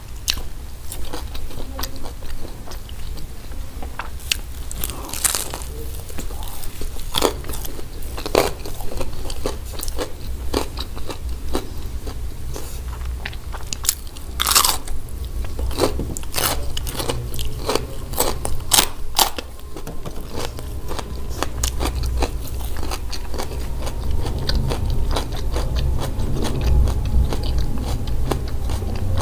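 Close-miked chewing of crispy hawawshi, bread baked around spiced minced meat, with many sharp crackles of crisp crust. One louder crunch comes about halfway through.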